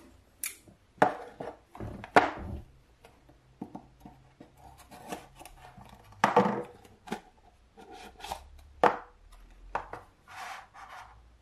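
A small black cardboard product box being opened by hand: a knife cutting it open and the lid scraping and sliding off. Irregular scrapes, taps and rustles, with a few louder scrapes about two, six and nine seconds in.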